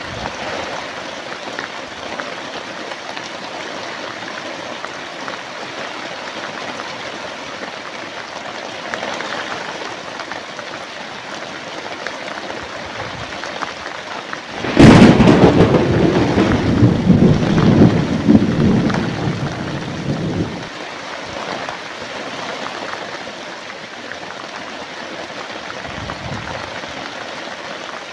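Steady rain falling, with a sudden thunderclap about halfway through that rumbles loudly for several seconds before fading back under the rain.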